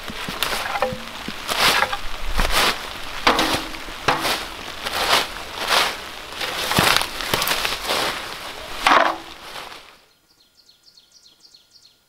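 Small shovel scraping and crunching through dry leaf litter and soil in a run of quick strokes, scooping moose droppings into a metal bucket. About ten seconds in it cuts to a much quieter forest, where a bird trills faintly in quick falling notes.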